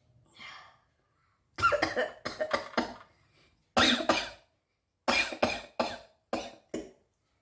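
A person sneezing and coughing, sharp explosive bursts in three quick bouts: a cluster, then one long burst, then a run of short ones. The bursts are set off by tickling the nose with a blade of grass.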